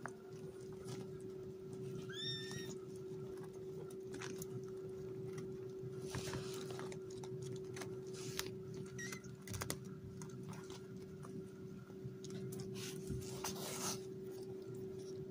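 A very young kitten gives one short, high-pitched mew about two seconds in, with soft rustling on the quilted puppy pad as kittens crawl around, over a steady low hum.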